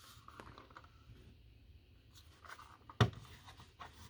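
Faint scraping and rustling of something being handled on a desk, with a sharp click about three seconds in and a softer one just after.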